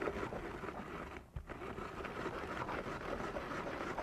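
Tupperware Quick Chef hand-cranked chopper being turned quickly, a steady rasping, rattling plastic noise as its three blades chop a pound of strawberries, with a brief break about a second and a half in.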